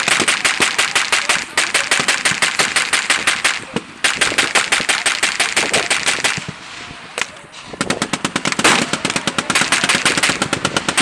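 Machine guns firing blanks in long, rapid bursts, the shots coming close together. There is a brief break about four seconds in, then a quieter stretch of scattered shots past the middle before the bursts pick up again.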